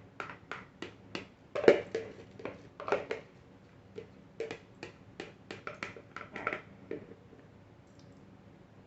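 Irregular clicks and light knocks of kitchenware being handled, about two or three a second, with one louder knock about two seconds in. They stop about seven seconds in.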